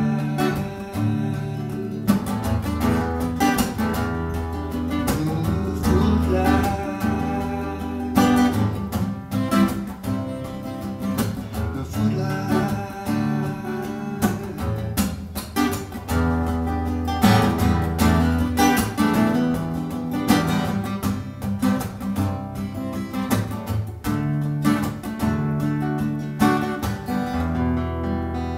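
Acoustic guitar strummed and picked, played solo.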